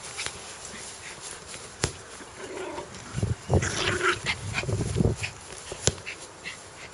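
A dog growling, the growl coming in low rumbling bouts from about two and a half seconds in to about five seconds, with a few sharp clicks around it.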